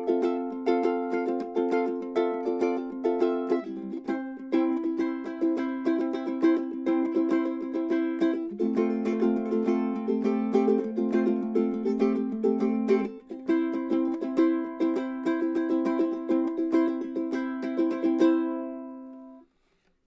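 Ukulele strummed in quick, rhythmic chords, with a last chord left to ring and fade out near the end.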